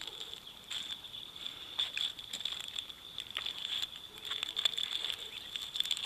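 Clear plastic zip-lock bags crinkling and small items clicking as they are handled, in short scattered bursts. A steady high insect chirring runs behind.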